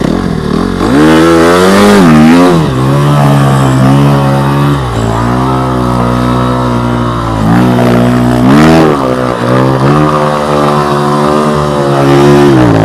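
Yamaha YZ250F motocross bike's four-stroke single-cylinder engine revving up and down in repeated surges as it is ridden under load through a waterlogged marsh ditch.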